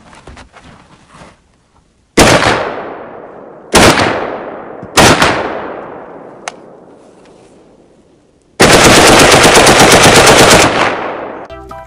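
A real rifle fired three single shots, each trailing off in a long echo, then a rapid full-automatic burst of about two seconds.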